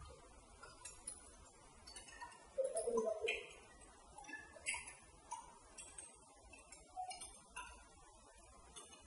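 Faint, irregular ticks of hailstones striking hard surfaces during a hailstorm.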